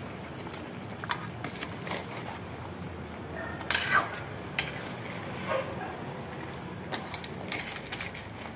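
Metal spatula scraping and knocking against a metal wok as sauce-coated fried chicken pieces are tossed: irregular scrapes every second or so, the loudest about four seconds in, over a steady low hiss.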